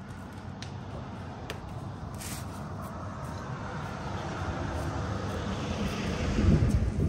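A passing vehicle: rushing engine and road noise that grows steadily louder, peaks about six and a half seconds in, then falls away.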